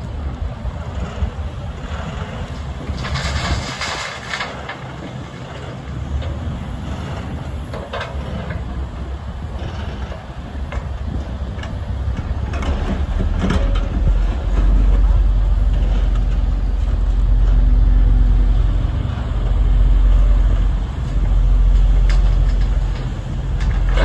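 Diesel engine of a Case crawler excavator working under load as it digs gravel and swings to load an articulated dump truck, with the truck's engine also running. A rushing burst about three seconds in and a few sharp knocks of stone and metal, and the engine's rumble grows much louder about halfway through as the excavator swings its load over the truck.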